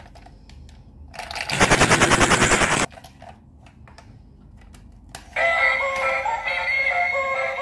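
A loud rapid rattle lasting about a second and a half, then, about five seconds in, a battery-operated toy duck switched on and playing an electronic tune. Light clicks of the plastic toy being handled come in between.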